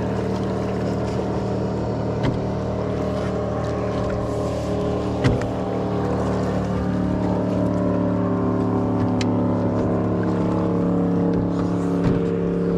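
Boat motor running steadily at a constant speed, with a few brief sharp knocks, the loudest about five seconds in.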